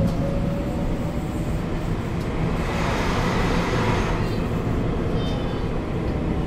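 Duewag R1.1 low-floor tram running between stops, heard from inside the car: a steady rumble of wheels on rail, with the drive's whine dying away just at the start. A rushing hiss swells and fades about three seconds in.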